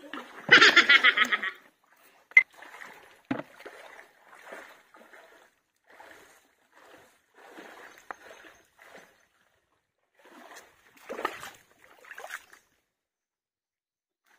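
Hands digging and scraping in wet mud and stones for tuway (mangrove clams): short wet squelching and splashing scrapes, with a loud burst of splashing near the start and a couple of sharp knocks of stone or shell a few seconds in.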